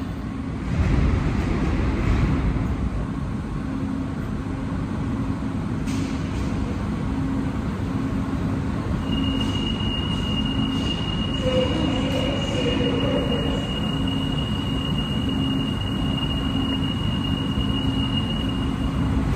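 Santiago Metro NS-07 rubber-tyred train standing at the platform, its onboard equipment giving a steady low hum with a pulsing tone. A thin, steady high-pitched tone comes in about halfway and holds.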